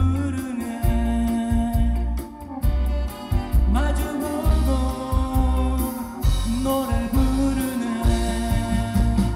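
Live band music with a steady kick-drum and bass beat and a voice singing a held, wavering melody over it.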